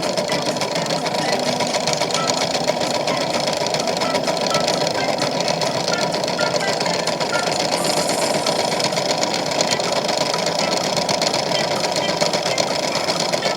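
Toy washing machine running a cycle: a small motor running steadily with a fast, continuous rattle.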